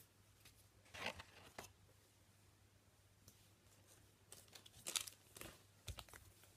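Faint tearing and crinkling of trading card pack wrappers being opened, in a couple of short rustling spells about a second in and again around five seconds in.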